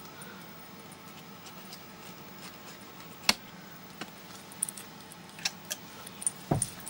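Hands handling a cardboard camera box, making a few light clicks and taps on the cardboard over faint room hiss. The sharpest click comes about three seconds in, and smaller ones follow towards the end.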